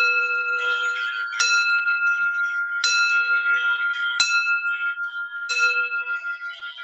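Singing bowls struck about five times, roughly every second and a half, each strike ringing on over the last so the tones overlap in a sustained hum.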